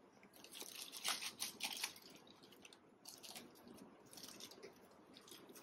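Thin plastic bag rustling and crinkling as it is handled, in two faint spells of crackles.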